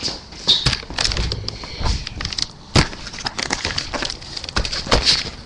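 Irregular knocks, clicks and rustles from a camera being picked up and moved by hand.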